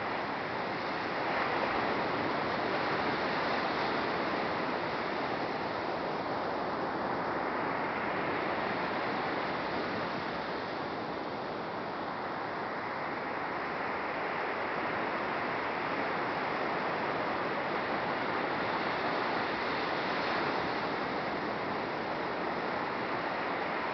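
Steady rush of surf breaking on a sandy beach, swelling and easing gently.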